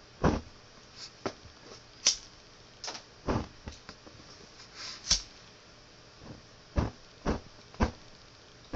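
A handheld lighter struck again and again: a dozen or so sharp clicks at uneven intervals, a few with a short scraping hiss from the flint wheel.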